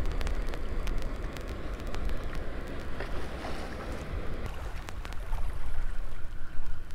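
Wind buffeting the microphone in a steady low rumble, over small waves washing against the jetty rocks, with scattered light clicks.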